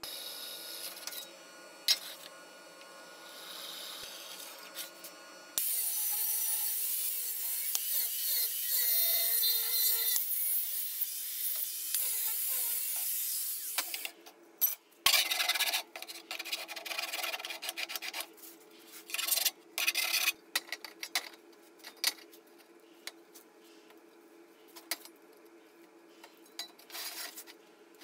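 Angle grinder with a cut-off disc cutting into square steel tube for about eight seconds, starting about five seconds in and stopping abruptly. Lighter scraping comes before it, and scattered clanks of steel tube and clamp being handled come after it.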